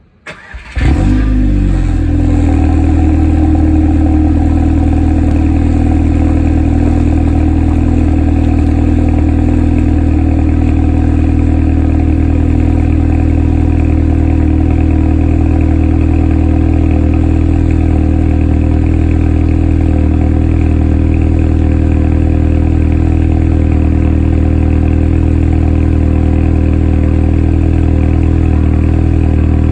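Cold start of a VW Scirocco R's turbocharged 2.0-litre four-cylinder through a Remus cat-back exhaust with the factory catalytic converter and no middle silencer: a short crank, the engine catches about a second in with a brief flare, then settles into a steady, loud idle.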